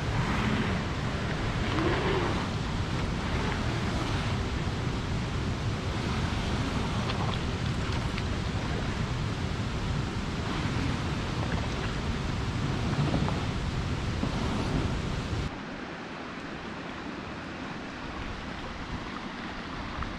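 Wind rumbling on the microphone over a steady wash of water noise at the river's edge. About fifteen seconds in it cuts off suddenly to a quieter steady hiss.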